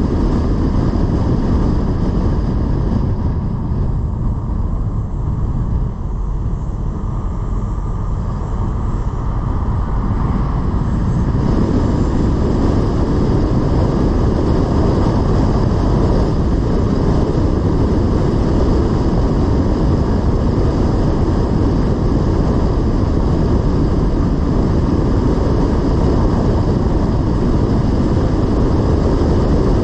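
Car driving on a road: steady engine and tyre noise. It is quieter for several seconds a few seconds in, then rises again and stays even.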